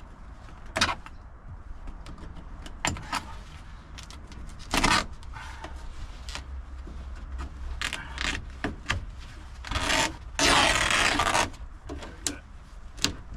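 A cordless drill-driver running in short bursts while backing out screws, the longest and loudest lasting about a second near the end, among scattered clicks and knocks of the work.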